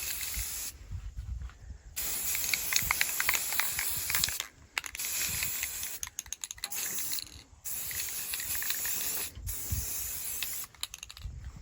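Aerosol spray paint can spraying in about six stop-start bursts of hiss, each from under a second to a couple of seconds long, with short breaks between them, as model car parts are painted.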